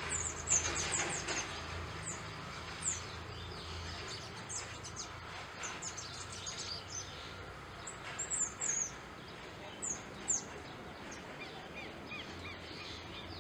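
Burnished-buff tanager (Tangara cayana) calling with many short, high, thin notes, some coming in quick runs of three or four.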